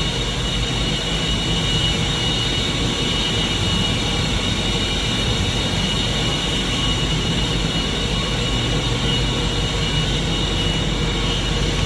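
Steady drone of plant-room machinery, with a low hum and a few steady high whines, unchanging throughout.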